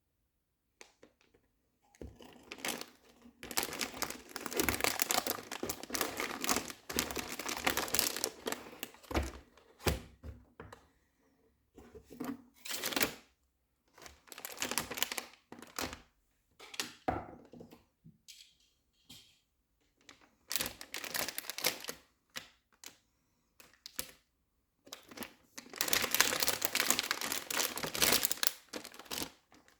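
Packaging being handled during an unboxing: long stretches of plastic crinkling and rustling, with shorter rustles, sharp clicks and light knocks in between and a few short silent pauses.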